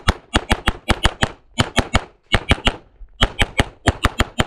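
Rapid 9mm pistol fire from a Walther PPQ Q5 Match SF, loud sharp shots in quick strings of two to four with brief pauses between them, about two dozen in all.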